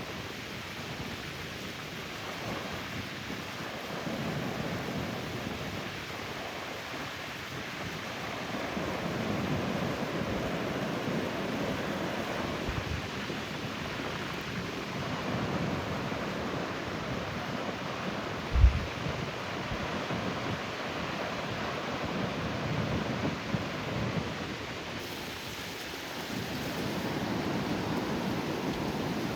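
Ocean surf washing on the beach, swelling and easing in waves, with wind buffeting the microphone. A single short low thump comes about two-thirds of the way through.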